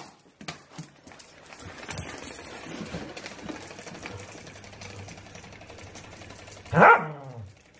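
Vibrating novelty toy ball buzzing steadily for several seconds while a dog holds it. Near the end comes a loud sound that falls steeply in pitch.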